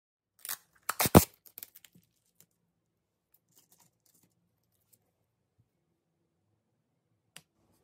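A quick burst of sharp clicks and rustling, loudest about a second in, then a few faint ticks and one more click near the end: the sound of small objects being handled.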